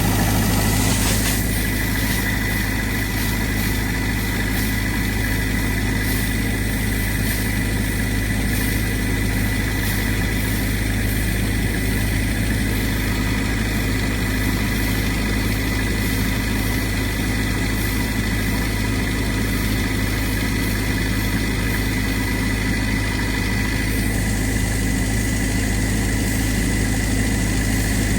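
Towed air compressor's engine running steadily under load while it blows compressed air through an irrigation reel's hose to clear out the water, with a constant hiss over the engine drone.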